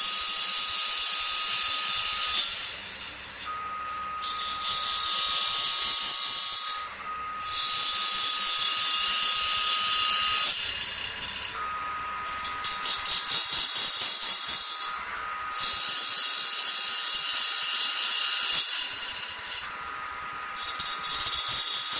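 A CNC saw-blade sharpening machine grinding the teeth of an HSS circular saw blade. The grinding wheel on the steel makes a loud high hiss in repeated passes of about three seconds, with short quieter gaps between them, over a steady whine.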